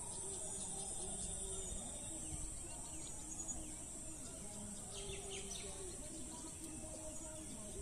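Pond-side outdoor ambience: a steady high insect drone with a few bird chirps about five seconds in, over faint distant voices.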